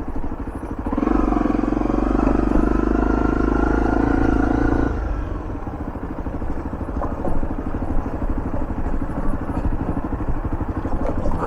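Motorcycle engine running under load, louder from about one second in until about five seconds in, then easing back to a lower, steady run.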